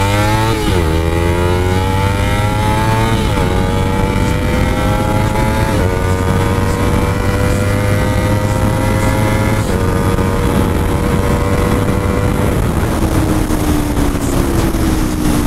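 Kawasaki Ninja 300's parallel-twin engine at full throttle, revving up through the gears with four upshifts, each a brief drop in pitch, over loud wind rush. About three-quarters of the way through the throttle closes and the engine note falls as the bike slows from its run of about 135 km/h.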